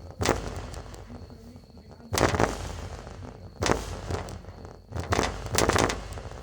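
Car subwoofer hitting heavy bass notes so loud that the microphone overloads, heard as distorted booms at irregular intervals of a second or two.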